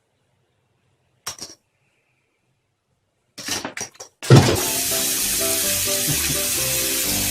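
Mostly quiet at first, broken by a few short noises, then about four seconds in a melody starts over a steady loud hiss.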